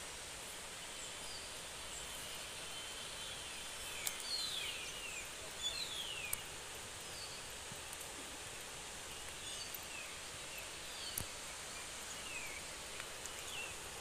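Steady rushing of a distant waterfall through forest, with birds calling in short falling whistled notes, a cluster of them about four to six seconds in and more scattered later.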